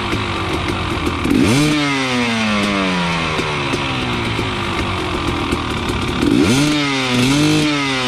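KTM 250 SX single-cylinder two-stroke dirt bike engine under way, revving sharply up about a second in and then dropping slowly in pitch; near the end it revs up twice more in quick succession before falling away.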